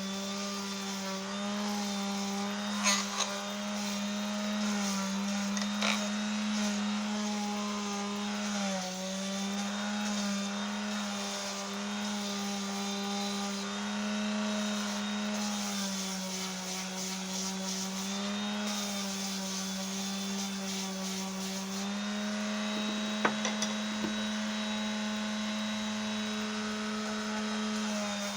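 Electric sanding tool running steadily with a sanding grit against small wooden pieces; its pitch dips slightly now and then. A few light knocks are heard.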